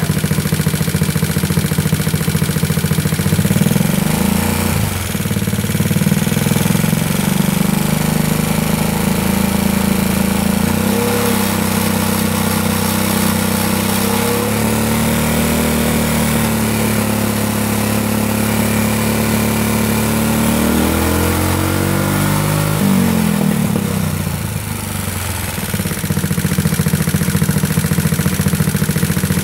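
Big-bore GY6 four-stroke single-cylinder scooter engine (61 mm kit, A9 camshaft, free-flow exhaust) running on a stand and revved: steady at first, its pitch climbs and holds from about ten seconds in, then falls back to idle around 23 seconds in. At these high revs the engine runs far too rich, by the owner's air-fuel meter.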